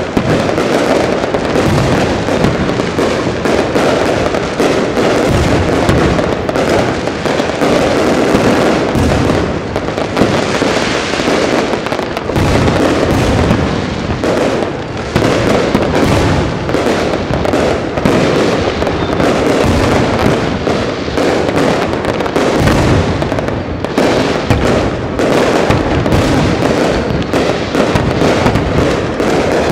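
Aerial firework shells bursting in a continuous barrage, the bangs coming so fast that they overlap without a break.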